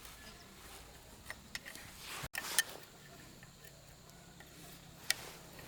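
A few light, scattered clicks and taps from hands working on engine parts, the sharpest about two and a half seconds in.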